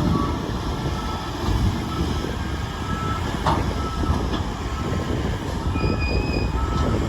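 Steady low rumble of heavy vehicles, with short faint high-pitched squeals now and then and a brief sharp sound about three and a half seconds in.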